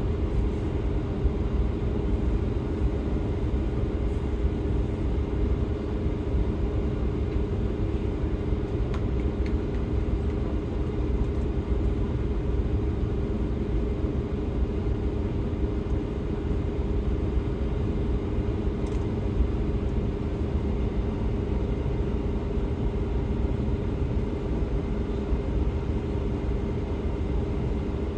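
Steady low rumble of a DB Class 628 diesel multiple unit under way, heard inside the passenger saloon: underfloor diesel engine and wheels on track, with a steady hum over it and a few faint ticks.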